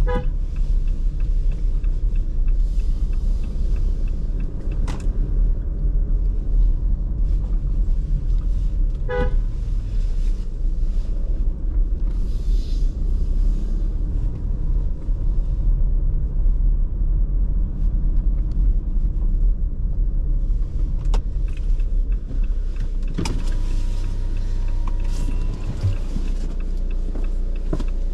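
Car driving in traffic with a steady low road and engine rumble, and short car horn toots at the very start and about nine seconds in.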